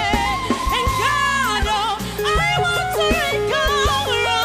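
Live gospel band music: a singer's melody with quick runs up and down in pitch, over keyboard and a steady drum beat.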